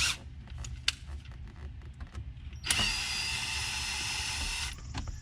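Cordless drill backing out screws from the interior console trim. A few handling clicks, then the drill motor whines steadily for about two seconds. It stops briefly and starts again near the end.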